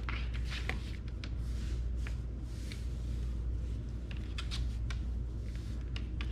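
Scattered small clicks and brief scrapes as the gear-oil pump's fitting is threaded by hand into the outboard lower unit's drain hole, over a steady low hum.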